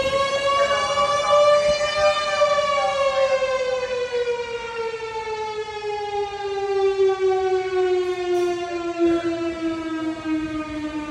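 Mechanical fire siren sounding one long whine: its pitch climbs slightly for about two seconds, then winds slowly and steadily down.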